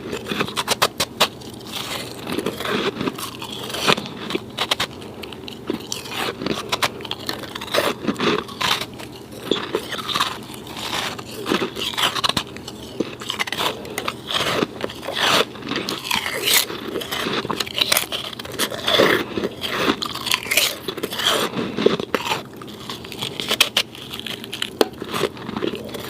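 Snow being bitten and chewed, a dense run of irregular crisp crunches and crackles one after another.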